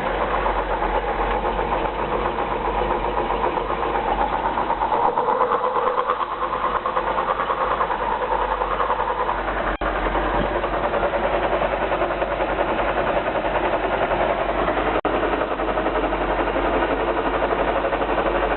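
Citroën DS gearbox running in fourth gear with the driven wheels spinning freely, heard through a screwdriver held against it: a steady grinding whir over the engine, the gearbox fault being traced.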